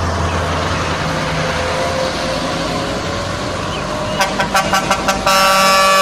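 Heavy trucks' diesel engines running, then a truck air horn: a quick series of short toots about four seconds in, followed by one long held blast near the end.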